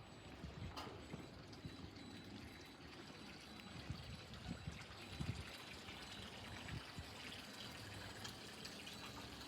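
Faint water sloshing and trickling against a boat's hull, with irregular soft low knocks.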